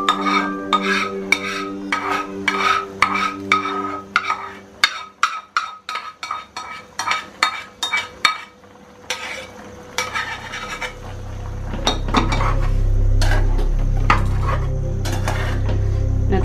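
A spatula scraping and knocking thick ground masala paste out of a metal mixer-grinder jar into a metal pan of chicken: many sharp clinks and scrapes, several a second. From about eleven seconds in, a low steady hum comes in under slower stirring in the pan.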